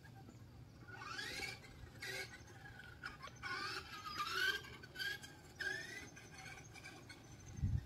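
A radio-controlled car's electric motor whining in short rising and falling sweeps as the throttle is worked, several times over.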